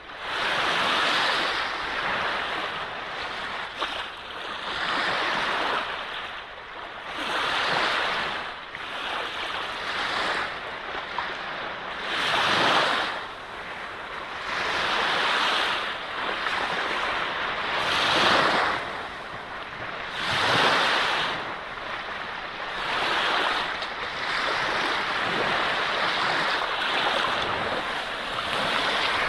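Sea waves washing onto a beach, the surf swelling and ebbing every two to three seconds, with a few louder breaks.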